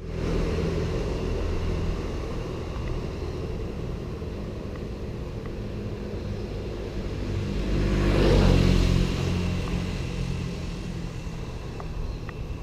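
Kawasaki Z800's inline-four engine with an aftermarket Arrow exhaust running steadily at low revs, with a louder swell about eight seconds in before it settles again.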